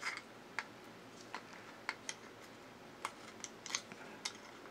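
Faint, irregular small clicks and taps of 3D-printed plastic parts being handled as a metal axle is worked into the wheel and gear of a bump-and-go drive unit.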